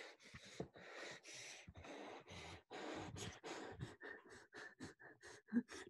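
A person panting in quick, ragged breaths close to the microphone, the breaths getting shorter and faster toward the end. It is acted panting of shock and horror.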